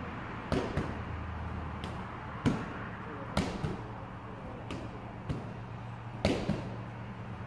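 Medicine ball striking a gym wall and being caught during wall-ball reps: sharp thuds every second or few, some in quick pairs a quarter-second apart, the loudest about two and a half seconds in. A steady low hum runs underneath.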